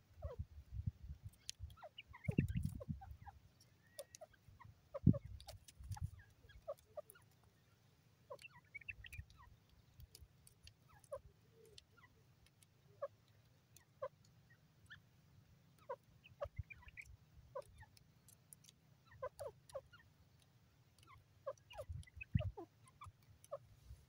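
Female grey francolin giving soft, short clucks and chirps, scattered irregularly throughout. A few low thumps, the loudest sounds, come about two, five and twenty-two seconds in.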